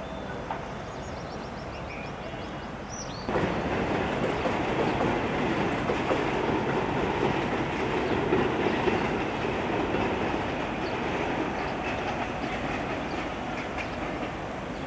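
Train rolling on rails: a steady rumble with rail clatter that starts abruptly about three seconds in and eases off slightly near the end.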